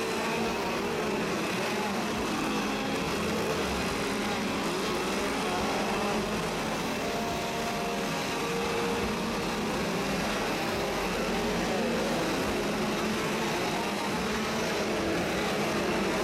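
Chainsaw engines running steadily, with a few glides up and down in pitch as they are revved.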